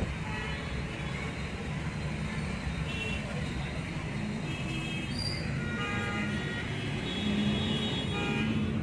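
Steady road-traffic and vehicle noise with faint, short horn toots now and then.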